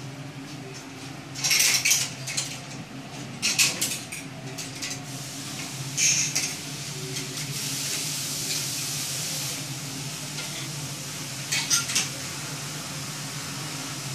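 Clothes hangers clinking and scraping along a metal clothes rail as garments are pushed aside and lifted off, in several short clusters of clicks with a longer sliding scrape in the middle. A steady low hum runs underneath.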